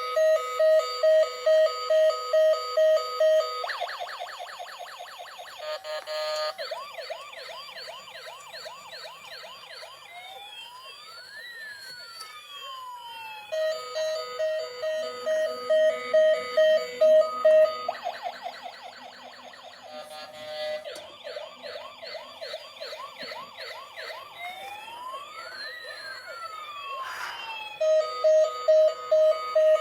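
Toy police van's electronic siren sound effect played through a small speaker, cycling through patterns: a fast pulsing beep, quick warbles, then slow rising and falling wails, the cycle starting over about every 14 seconds.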